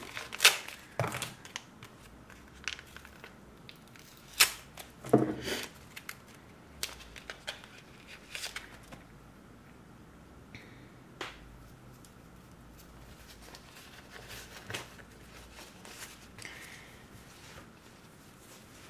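An alcohol wipe sachet being torn open and the wipe pulled out, with short crinkling rustles and clicks of handling, several sharper ones in the first half and a scattered few later.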